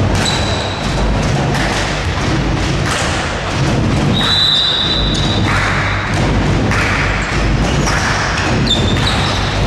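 Repeated thumps of a ball and players' feet on an indoor court during play, with a steady high tone sounding twice, about four seconds in and near the end.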